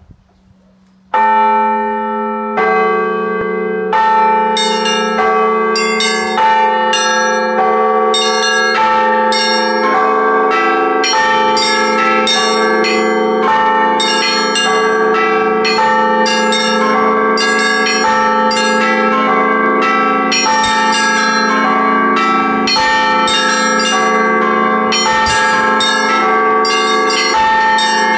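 Russian Orthodox church bells rung in a perezvon, struck one after another. After about a second of faint hum, two slow strokes start it, then from about four seconds in the strikes come steadily at about two a second, the bells ringing on over one another.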